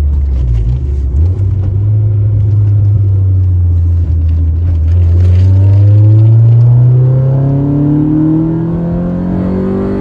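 Honda Civic Si's 1.6-litre VTEC four-cylinder heard from inside the cabin. It changes gear about a second in, then pulls hard in gear with its engine note rising steadily as the revs climb.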